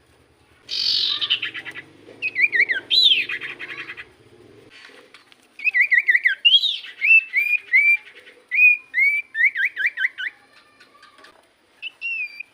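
Common iora (cipoh) calling: a harsh chattering rattle about a second in, then runs of clear whistled notes that slide downward, repeated several times a second with short pauses between runs.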